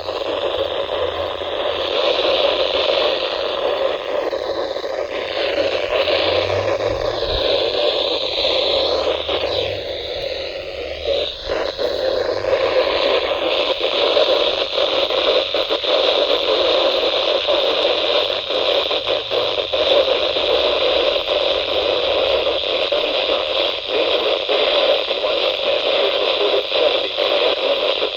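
NOAA weather radio receiver giving out loud, steady static hiss from a weak, noisy signal, with no voice or alert tone coming through. The hiss wavers between about 4 and 13 seconds in, then holds even.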